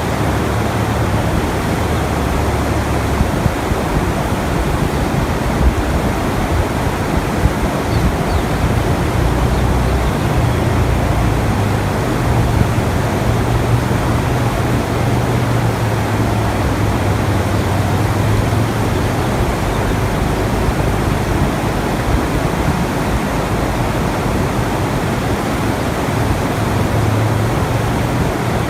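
Steady rushing-water ambience of the kind used in sleep recordings, with a low hum underneath that swells and fades every few seconds.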